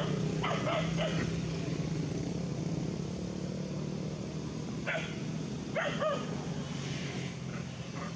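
A dog barking: a couple of short barks near the start and a few more about five seconds in, over a steady low hum.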